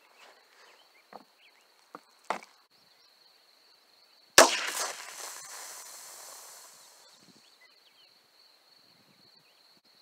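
A single .22 rimfire shot from a Heritage Rough Rider revolver about four seconds in. It is followed by a hiss, fading over about three seconds, as carbonated soda jets out of a punctured two-liter bottle.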